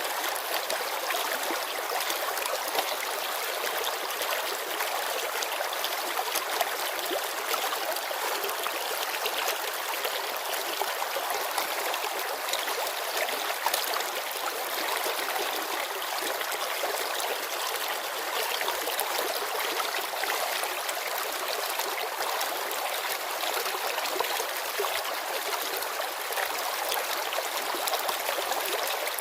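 Shallow mountain river babbling over stones, a steady rush with quick small splashes and gurgles throughout.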